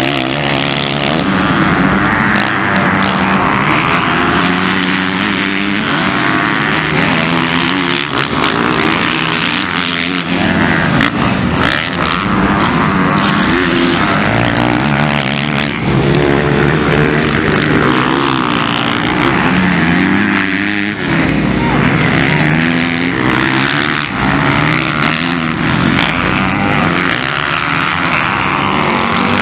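MX1-class motocross bike engines racing on a dirt track, revving up and dropping back again and again as the riders work the throttle and change gear.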